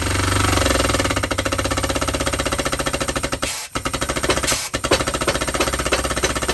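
Pneumatic air hammer rattling at a rapid stroke on a driver, forcing a new rear hub bearing onto the hub, which is stubborn to seat. The fast hammering breaks off briefly a little past the middle, then picks up again.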